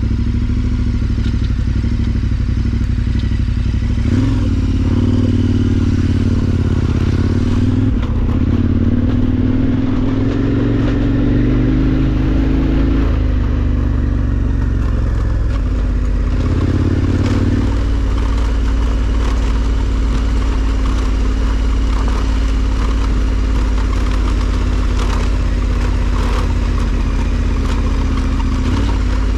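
KTM 1290 Super Adventure R's V-twin engine running at low revs while riding a gravel track, its note rising and falling with the throttle a couple of times in the first half. The tyres crunch and knock over the loose stones.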